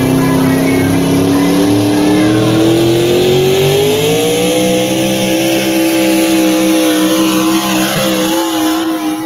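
Competition pulling tractor's engine at high revs, pulling a weight-transfer sled down a dirt track. Its pitch climbs steadily for the first few seconds, then holds at the top; the owner says the engine could be heard bouncing off the rev limiter as the tires broke traction.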